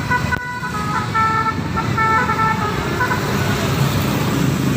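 Indonesian bus 'telolet' horn, a set of musical air horns sounding several notes at once and stepping through a short tune of changing tones, over engine and traffic rumble. The tune stops about three seconds in.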